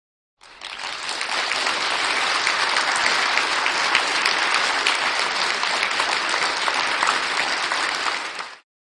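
Applause sound effect: a crowd clapping, starting about half a second in, swelling over the first second, holding steady and then cutting off just before the end.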